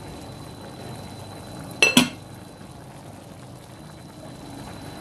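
Beef spareribs stew simmering steadily in a pot, with two sharp metallic clinks of the pot lid close together about two seconds in.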